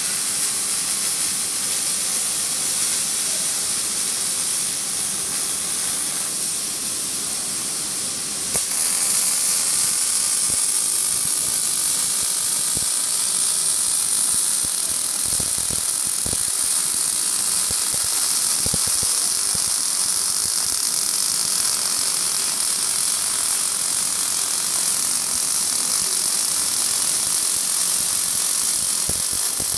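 Robotic MIG welding arc, a steady crackling hiss as the torch lays a bead on a steel frame; it grows louder about eight seconds in.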